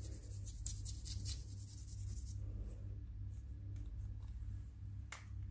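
Paintbrush strokes scratching lightly across paper, thickest in the first couple of seconds, over a steady low hum; a single sharp click near the end.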